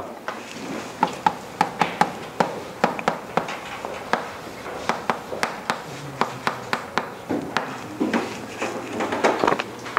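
Writing on a board: a run of sharp, irregular taps and strokes, a few a second.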